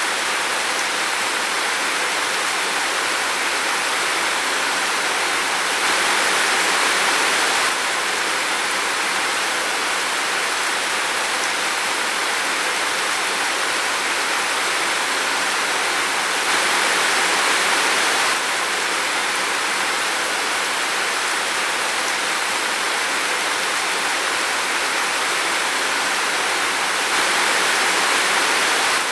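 Steady rain falling in a forest, a dense even hiss with slight swells in intensity every ten seconds or so.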